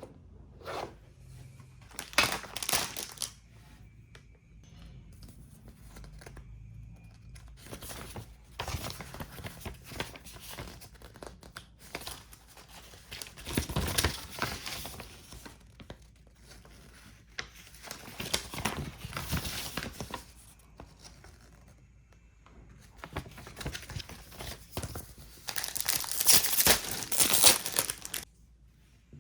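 Plastic packaging crinkling and tearing in repeated bursts as a gunpla model kit's bags are handled and opened; the loudest stretch comes near the end.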